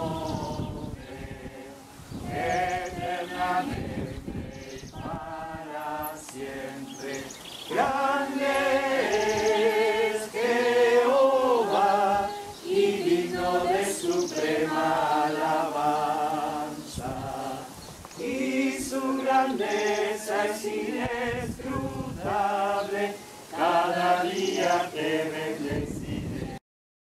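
A group of men's and women's voices singing a Spanish hymn together in unison, without instruments, holding long notes. The singing breaks off for a moment near the end.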